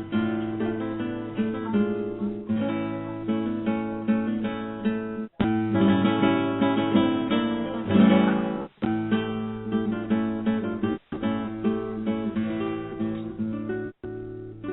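Acoustic guitar music, plucked and strummed, over a phone line, cutting out briefly four times.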